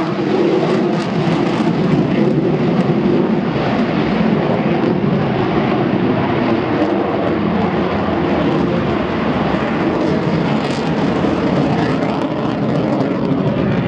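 An aircraft's engine running steadily as it flies overhead, with a low pitched hum in the first few seconds that blurs into an even engine noise.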